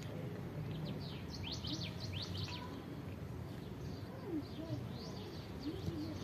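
Small birds chirping in quick, steep, high-pitched sweeps, most thickly about one and a half to two and a half seconds in. A lower, wavering bird call comes around four to six seconds in, over a steady low background hum.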